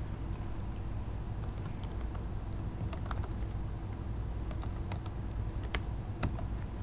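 Computer keyboard being typed on: irregularly spaced key clicks as a short shell command is entered, over a low steady hum.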